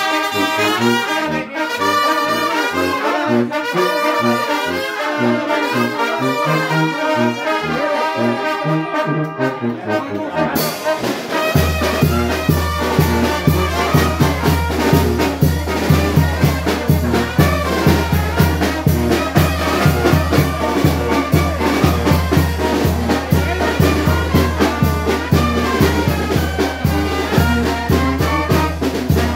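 Mexican brass band (banda) playing live, trumpets and trombones carrying the melody. About ten seconds in, cymbals and a steady drum beat come in over a low bass line.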